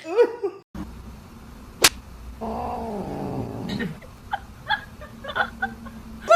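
A cat yowling once, a long drawn-out call that falls in pitch, preceded by a sharp click. A few short, high chirp-like sounds follow it.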